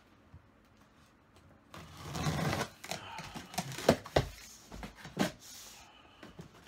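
Cardboard PC case box being handled: a scraping rustle about two seconds in, then a run of knocks and taps against the cardboard.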